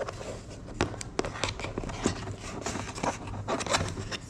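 Hand tools and small parts clicking and scraping on a laptop being worked on: about a dozen irregular sharp clicks with light scraping between them.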